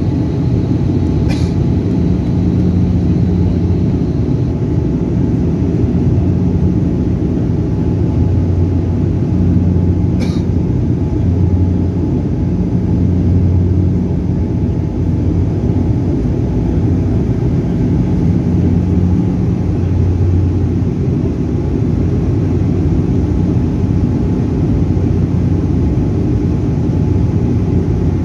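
Cabin drone of a high-wing turboprop airliner climbing after takeoff: a steady low propeller and engine hum that swells and fades every few seconds. Two brief clicks sound, about a second in and about ten seconds in.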